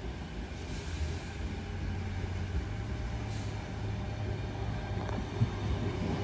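Sydney Trains Tangara double-deck electric train pulling into the platform, a low rumble with a steady hum growing slowly louder as it nears.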